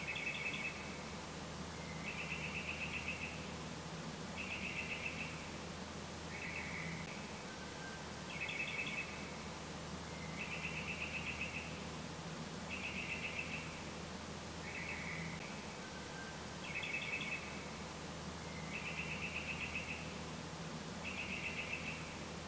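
A small animal calling: short, rapid trilled chirps, high-pitched, repeated about every two seconds, over a steady low hum.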